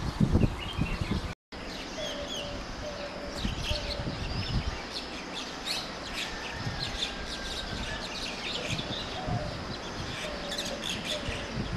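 Many small birds chirping and calling over one another in a morning chorus: short, high, quick chirps throughout, with a few lower drawn-out whistled notes. It opens with a loud low rumble that cuts out completely for a moment about a second and a half in.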